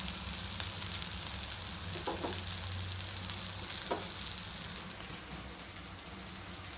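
Nine-grain dosa batter sizzling in oil on a hot iron dosa griddle (tawa): a steady hiss that eases off slightly in the second half.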